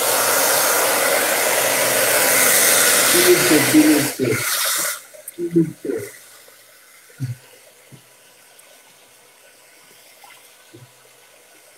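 Handheld electric hair dryer running, a loud steady rush of air that stops suddenly about five seconds in.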